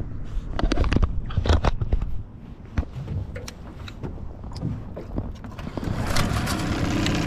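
Knocks and clicks from casting a fishing rod and handling the reel in a small aluminium boat, most of them in the first three seconds. A steady rushing noise sets in about six seconds in.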